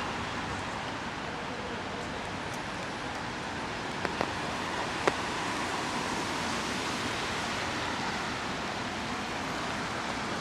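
Steady hiss of falling rain, with a few short sharp ticks about four and five seconds in.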